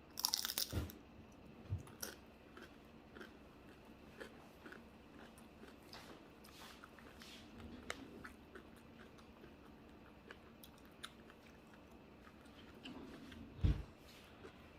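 A close-miked bite into a crispy cheesesteak egg roll: a loud crunch at the start, then chewing with small scattered crackles. A dull thump comes near the end.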